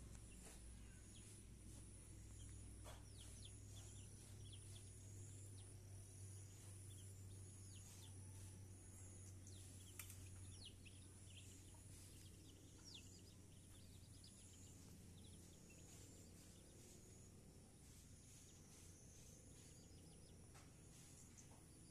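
Faint birds and insects: a high-pitched insect trill repeating in short pulses, with scattered short falling bird chirps. A low rumble runs under the first half and stops about halfway through.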